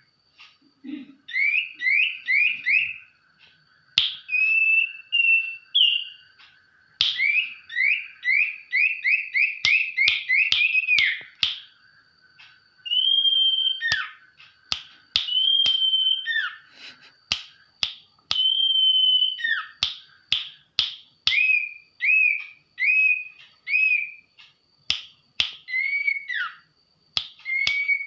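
Sirtu songbird singing a shama-like song: fast runs of rising whistled notes, a few longer held whistles, and sharp clicks between the phrases.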